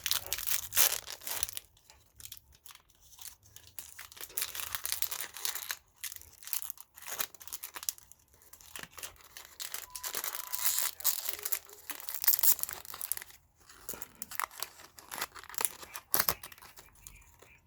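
Plastic packaging of an HP 61 tri-color ink cartridge being peeled, torn and crinkled as the cartridge is pulled out, in irregular crackling rustles with short pauses.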